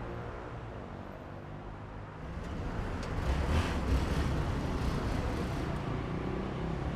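Street traffic noise, a low steady rumble, with a vehicle passing and growing louder about three seconds in.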